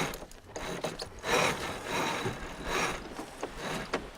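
A sailing yacht's sheet winch being cranked, its ratchet pawls clicking in several separate bursts as the line is hauled in.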